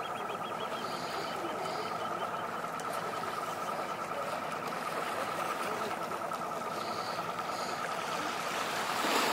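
Whale-watching boat's engine idling with a steady high whine over a hiss of water; the water noise swells near the end.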